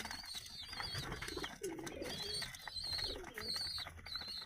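Pigeons cooing in low, bending calls, over repeated high wavering chirps from other birds and scattered sharp clicks.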